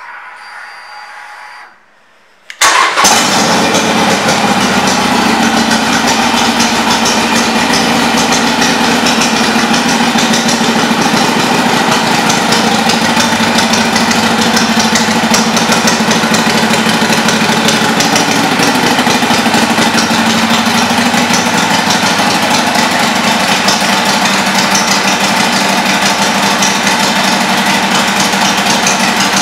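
Harley-Davidson Iron 883's air-cooled V-twin, fitted with aftermarket pipes, starts up suddenly about three seconds in and then idles steadily and loudly.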